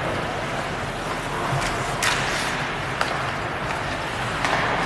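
Ice hockey play in a rink: a steady hiss of skates and arena noise, with about four sharp clacks of sticks and puck spread through it.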